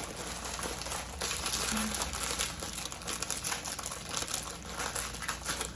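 Plastic bag of rice cakes crinkling and rustling as it is opened by hand, a steady run of crackles.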